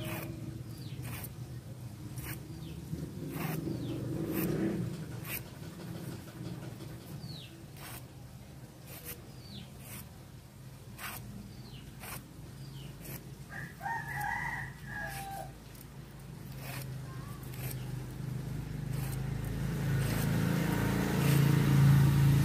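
A rooster crowing once in the background about two-thirds of the way through, over a steady low hum that swells near the end and scattered light clicks.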